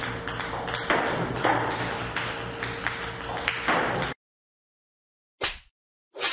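Table tennis balls clicking and bouncing on a table, several hits a second in an irregular run, over a steady hum. The sound cuts off abruptly about four seconds in, and two brief sounds follow near the end.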